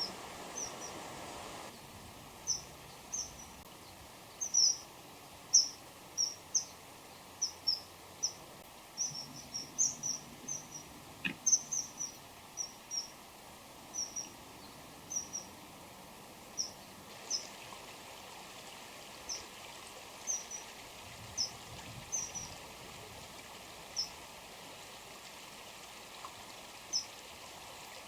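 Common kingfishers, a male and female pair, calling back and forth with short, sharp high-pitched notes in quick irregular runs. The notes come thickest in the first half and thin out to scattered single calls later.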